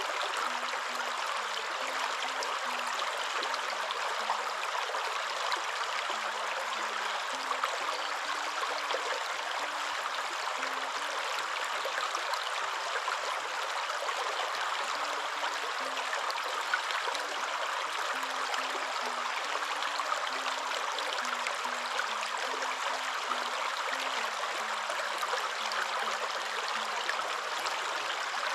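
Waterfall: a steady, even rush of falling water, with faint low tones shifting underneath.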